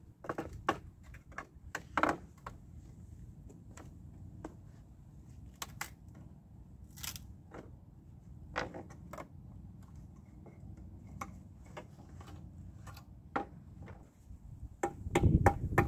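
Steel crowbar prying boards off an old wooden pallet: irregular knocks and clicks of metal on wood as the slats are levered loose, with a louder run of knocks near the end.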